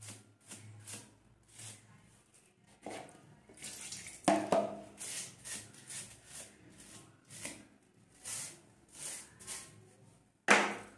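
A plastic comb rubbed back and forth on a wet bar of soap, in irregular scrubbing strokes about one or two a second, with one louder, sharper stroke or knock near the end.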